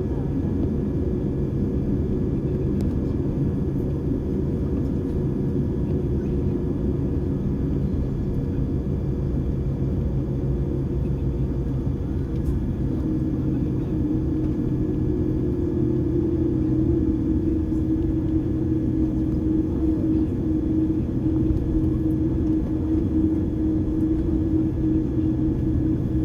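Jet airliner's cabin noise while taxiing: a steady low rumble of the engines and the rolling airframe, with a hum that rises slightly in pitch and grows a little louder just past halfway.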